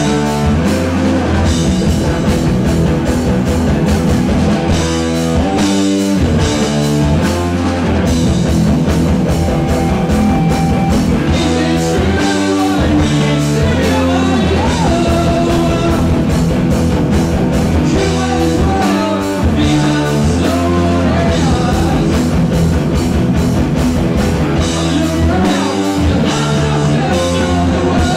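Heavy metal band playing live: electric guitars, bass guitar and drum kit together, with a steady drum beat.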